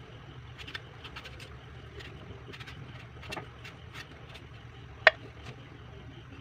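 Kitchen knife peeling a green mango: small scrapes and clicks of the blade on the skin, with one sharp click about five seconds in, over a steady low hum.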